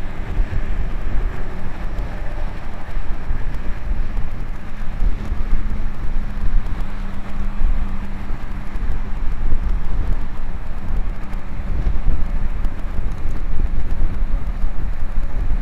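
Wind buffeting the microphone of a camera on a moving road bicycle, a loud gusty rumble with a faint steady hum partway through.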